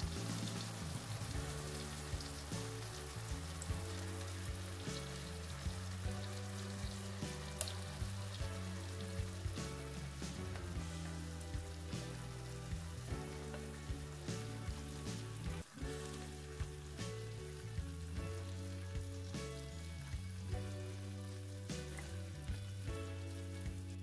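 Apple slices in butter and sugar sizzling steadily in a frying pan, with scattered small pops, over soft background music.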